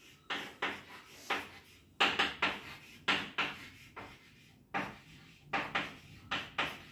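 Chalk writing on a blackboard: a quick, irregular series of short taps and scrapes, two or three a second, as each stroke of a letter is drawn.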